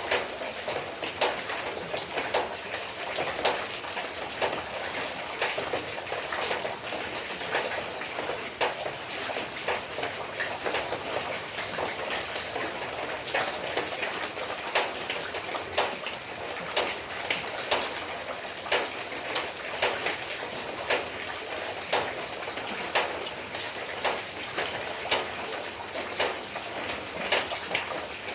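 Steady rain with a continuous hiss, and many sharp drops striking close by at irregular intervals.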